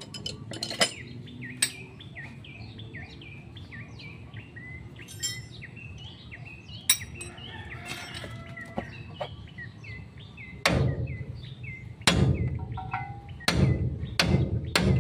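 A bird calls over and over, a run of short falling chirps. From about two-thirds of the way in, a hammer strikes a steel drift set in the truck's front steering knuckle: a series of loud metal blows while the king pin assembly is knocked apart.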